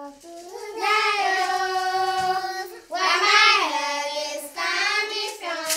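A child singing unaccompanied, in three long phrases of drawn-out, wavering notes.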